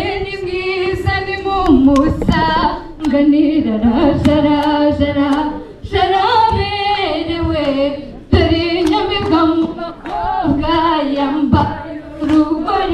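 A group of women singing together unaccompanied, in sung phrases of a second or two each with brief breaks between them.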